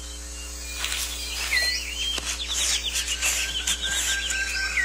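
Forest birds calling: short chirps and whistles, with a rapid trill of repeated notes through the middle and a long thin whistle near the end, over soft music with steady low tones and a few faint clicks.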